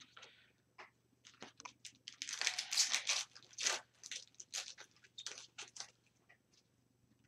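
Upper Deck hockey card pack wrapper being torn open and crinkled in the hands: a run of sharp crackles, densest from about two to three and a half seconds in, then sparser as the cards are pulled out.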